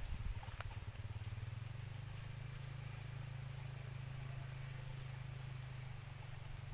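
A motor running steadily with a low drone, easing slightly near the end, with a faint steady high insect-like tone above it.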